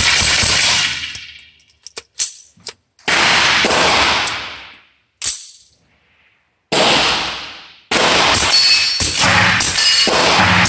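Suppressed Smith & Wesson SW22 Victory .22 LR pistol firing. A few single shots with an echo that trails off, then a fast string of shots, about two or three a second, through the last few seconds.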